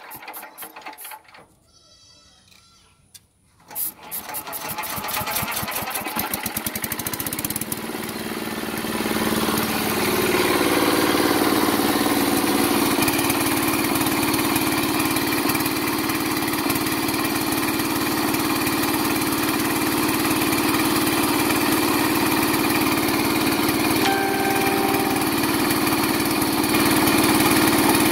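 Small single-cylinder diesel engine hand-cranked and catching after a brief lull. It picks up speed and loudness over the next several seconds, then runs steadily, driving heavy flywheel pulleys and a belt-driven alternator.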